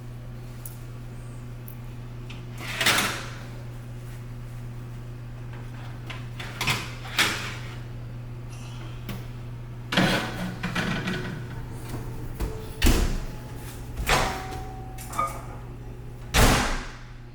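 Kitchen clatter as a tray of cookies is taken out of the oven: an oven door and a metal baking tray knocking and scraping in a string of separate clunks, the loudest near the end, over a steady low hum.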